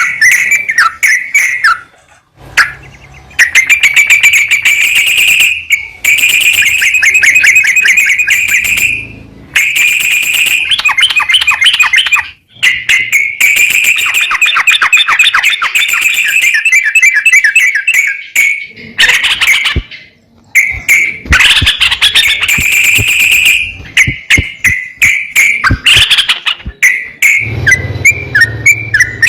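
Sooty-headed bulbul (trucukan) song: long runs of rapid, chattering trilled notes, broken every few seconds by short pauses.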